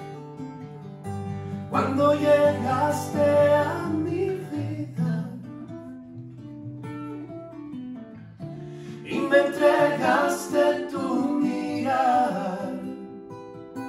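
Acoustic guitar chords with men singing a ballad in Spanish: two sung phrases, the first about two seconds in and the second about nine seconds in, with guitar alone between them.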